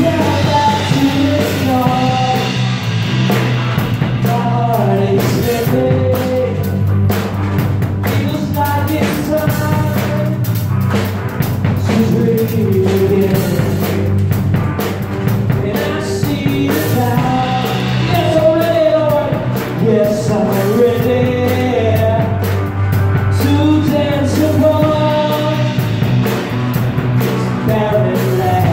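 Live worship band playing a song, with an acoustic drum kit struck with sticks heard up close, keyboard, and group singing over it.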